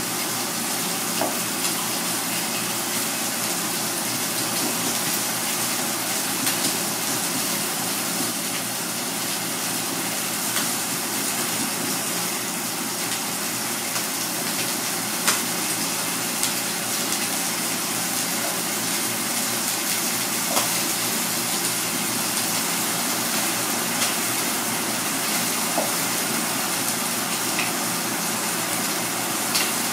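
Steady rushing kitchen background noise, with a few scattered sharp taps of a Misono chef's knife against a cutting board as garlic is sliced and minced.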